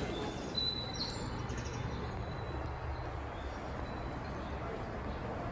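Steady low hum and rumble of a busy railway station's ambience, with a brief high chirp about half a second in.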